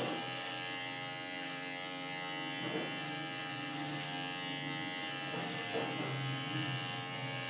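Electric hair clipper with a guard comb fitted, running with a steady buzz while cutting hair.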